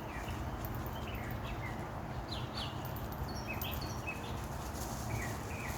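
Small birds chirping in short, quick notes over a steady low outdoor background hum.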